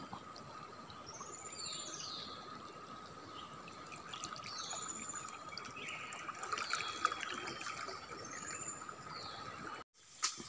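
Muddy river water running, with a bird repeating a short high call every second or two over a steady insect drone.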